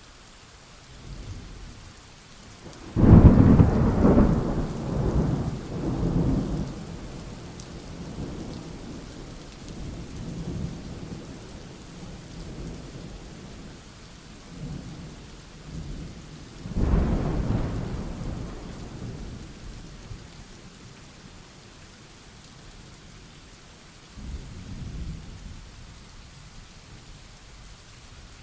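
Thunderstorm: steady rain hiss under a loud, sudden thunderclap about three seconds in that rolls and rumbles for several seconds, a second clap of thunder in the middle, and a fainter rumble near the end.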